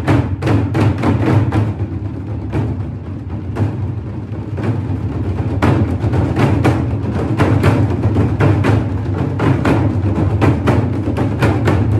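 Music with a steady drum beat over a low bass; the drumming thins out for a few seconds about two seconds in, then picks up again.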